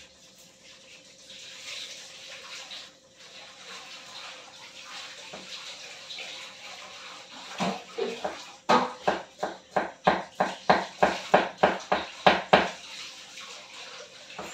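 Kitchen work at a wok on a gas stove: a faint steady hiss, then a run of a dozen or more sharp knocks that quicken to about three a second and stop suddenly near the end.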